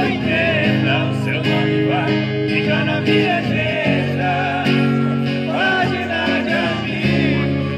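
Acoustic guitar playing chords while several voices sing along.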